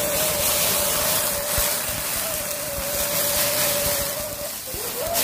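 Handheld gas torch flame hissing steadily with a faint whistling tone, as the crab is flame-grilled; the flame dips and flares again near the end.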